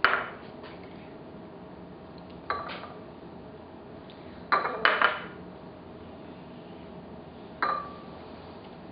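Several short clinks and knocks of cutlery against dishes, spaced a second or two apart, the last one ringing briefly.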